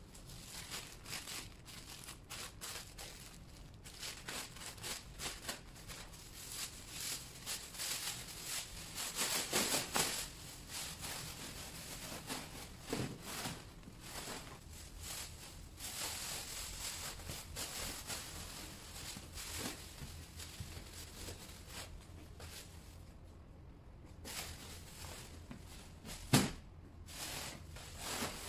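Large plastic biohazard waste bag rustling and crinkling as it is shaken open, filled with air and squeezed by hand, with one sharp knock near the end.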